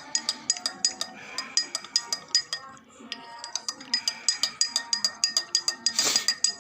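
A metal spoon stirring in a glass, clinking against the side about four times a second with a bright ringing note, pausing briefly about three seconds in. A louder brush of noise comes just before the end.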